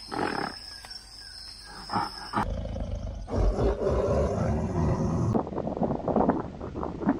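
A lion roaring from about two and a half seconds in, between other animal calls: a few short grunts before it, and a quick run of short repeated calls after it.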